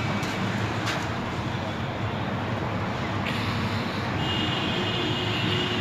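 Steady low mechanical background rumble, with a few faint clicks.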